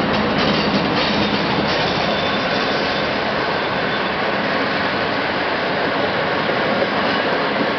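Passenger coaches of a departing train rolling past close by: a steady rumble and hiss of wheels on rail, with a few faint clicks in the first couple of seconds.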